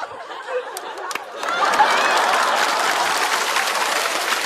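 Studio audience laughing lightly, then breaking into loud applause about a second and a half in.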